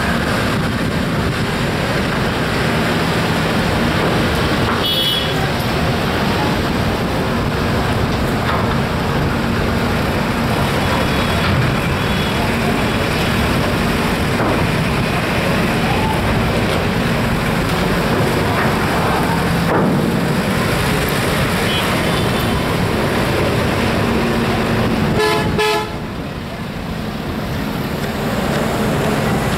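Busy traffic noise with a steady low engine hum and people's voices, broken by short vehicle horn toots about five seconds in and again near the end.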